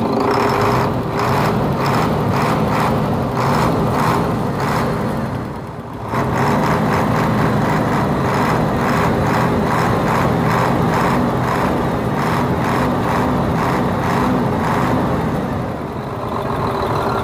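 Hino 500 series truck's diesel engine running, with the belt-driven cooling fan spinning on its newly fitted fan clutch. The sound pulses steadily, dips briefly about six seconds in, then comes back up to the same level.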